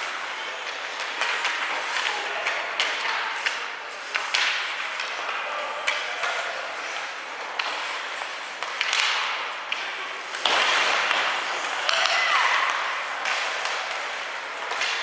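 Ice hockey game in an arena: sharp clacks and knocks of sticks and puck, some of them thuds against the boards, over a steady hum of spectators' voices and shouts.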